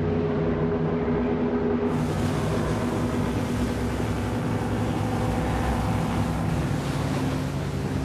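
A ship's engine droning steadily, with the rush of water and wind over it that turns brighter about two seconds in.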